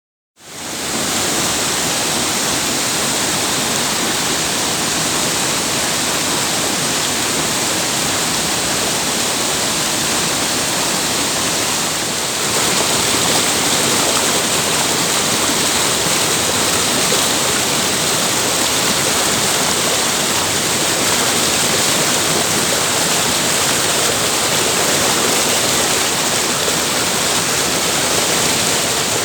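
Waterfall, a steady rush of falling water that fades in quickly at the start and grows slightly louder a little under halfway through.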